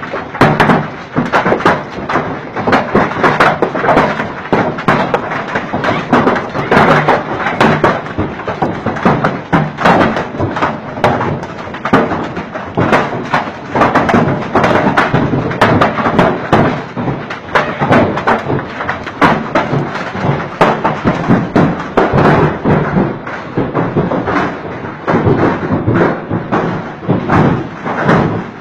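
Hailstones pelting down with torrential rain: a dense, continuous clatter of many small impacts.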